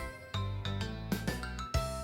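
Upbeat children's song backing music without vocals: held notes over a steady beat.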